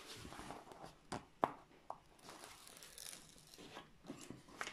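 Paper rustling and crinkling as the printed release paper on a diamond painting canvas is handled and its corner lifted. Three sharp clicks come between one and two seconds in, the middle one the loudest.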